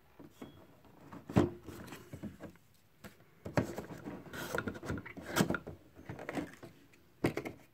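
Hands handling a plastic packaging tray and cardboard inserts: scattered taps, clicks and rustles, the busiest stretch in the middle.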